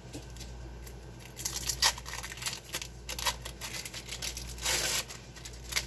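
Thin plastic film wrapper of an individually wrapped cheese slice crinkling and tearing as it is peeled off by hand, in several short crackly bursts starting about a second and a half in.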